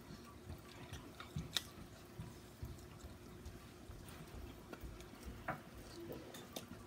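Faint chewing and biting of sauce-coated fried chicken legs, with scattered small wet clicks and soft thumps, over a faint steady hum.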